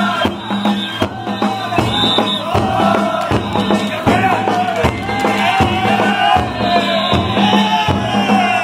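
Danjiri festival music: drum beats about once a second under many voices calling and chanting together.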